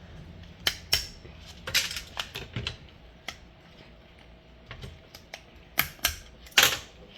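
Small plastic parts from the inside of a dismantled Timex alarm clock clicking and tapping as they are handled: irregular sharp clicks, with the loudest near the end.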